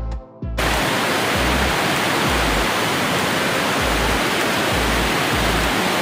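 Steady rush of water from a large waterfall, cutting in suddenly about half a second in, with a low background-music beat pulsing underneath.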